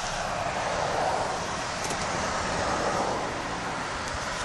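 Car road noise: a steady rush of tyres and engine on the road, swelling a little about a second in.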